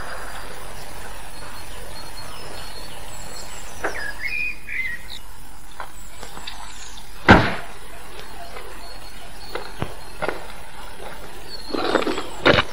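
Faint bird chirps, short high descending calls, over a steady hiss, with one sharp knock about seven seconds in and a few smaller clicks near the end.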